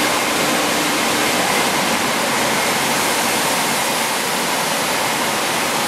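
Stainless-steel fruit and vegetable air-drying line running, its blowers making a steady, loud rush of air.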